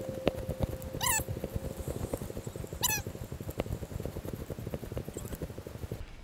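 Dry stalks and straw crackling and rustling as someone walks through a corn maze path and brushes past the plants. There are two short, high, wavering calls, one about a second in and one near three seconds. A steady hum fades out about halfway through.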